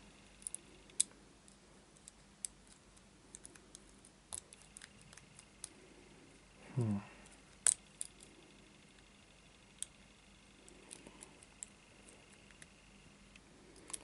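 Faint metallic clicks and scratches of a lock pick probing the pins of a small brass padlock under a tension wrench during single-pin picking. They come scattered throughout, with one sharper click about eight seconds in.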